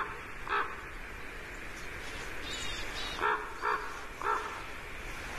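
Common ravens calling: five short, hoarse croaks, two near the start and three more a little past the middle.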